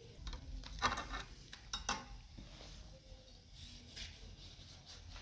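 A handful of light knocks and clinks, like utensils or dishes being handled, the loudest about a second in and just before two seconds.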